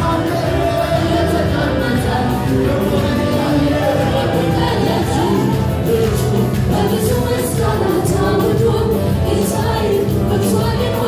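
Church praise and worship music: several voices singing together over a loud band with a strong bass and steady percussion.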